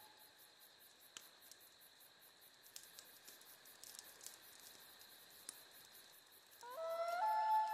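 Faint soundtrack ambience: rapid, evenly spaced high ticking over a thin steady high tone. Near the end a pitched tone glides upward and then holds, much louder.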